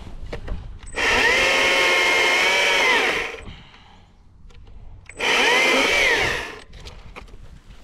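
Stihl MSA 120C battery chainsaw's electric motor and chain running in two bursts, the first about two seconds long and the second about a second: each time the whine rises to speed, holds, then winds down.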